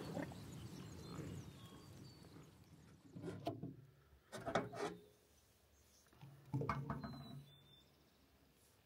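American bison grunting: three short, low grunts spread over a few seconds.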